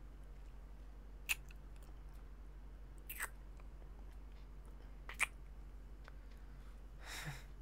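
Kissing sounds: three short lip smacks about two seconds apart, then a soft breath near the end.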